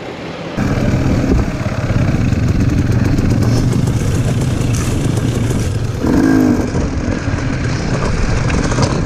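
Dirt bike engine running under throttle along a rough trail, heard from the rider's own camera, starting abruptly about half a second in. There is a brief rise in pitch about six seconds in.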